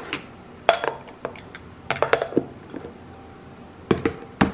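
Glass food-storage containers with plastic snap-lock lids handled on a stone countertop: a scattered run of sharp clicks and knocks, a small cluster about two seconds in and two more near the end.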